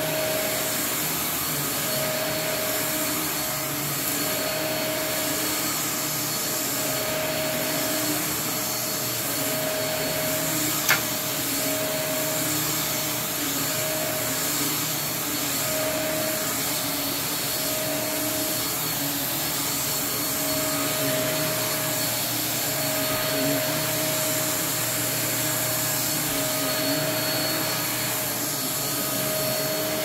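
Upright vacuum cleaner running steadily while being pushed across carpet, its motor whine coming and going every second or so. A single sharp click sounds about eleven seconds in.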